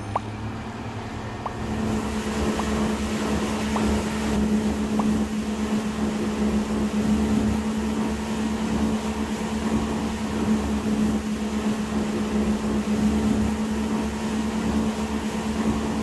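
Outboard motor of a small fishing boat running steadily at cruising speed, a constant engine drone over the rush of wind and water.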